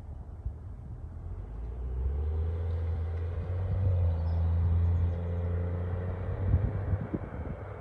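A motor vehicle's engine passing by, growing louder over a couple of seconds and then fading away.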